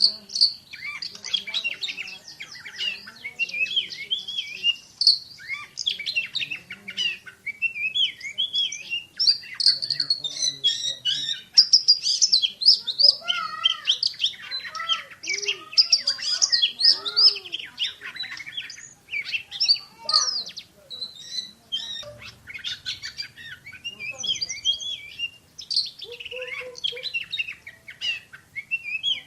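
Oriental magpie-robin (kacer) singing nonstop: a fast, dense stream of sharp chirps and whistles in the rapid 'tembakan' (shooting) style.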